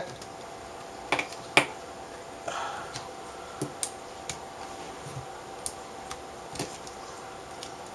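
Irregular light clicks and taps, with a brief soft scrape, as an LED backlight strip is slid back into the metal frame of an LCD panel.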